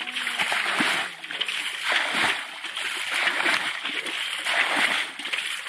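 Shallow muddy pond water being splashed and sloshed again and again, about one splash a second, as water is thrown toward a triangular push net.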